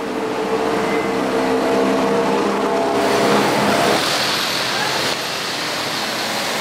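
City street traffic: a vehicle engine running with a steady hum for the first few seconds, then a steady wash of traffic noise that changes abruptly a few times.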